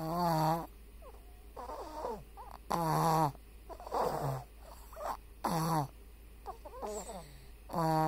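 Snoring in a steady rhythm: four loud, pitched snores about every two and a half seconds, with a softer, wavering sound between each pair.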